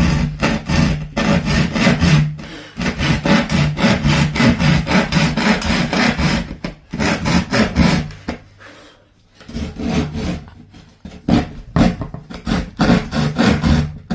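Hand saw cutting through a wooden table top in quick back-and-forth strokes, with a brief pause a little past the middle.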